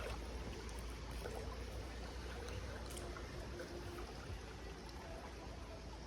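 Forest stream running steadily, a continuous quiet rush of flowing water with a few faint ticks.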